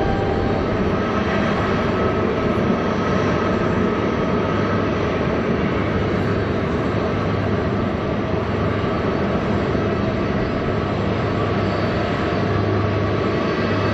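Airbus A330-323 taxiing, its Pratt & Whitney PW4000 turbofans running as a steady rumble with a thin whine on top.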